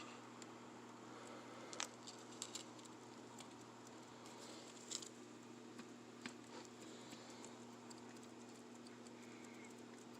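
Near silence: a steady faint hum with a few scattered faint clicks and taps.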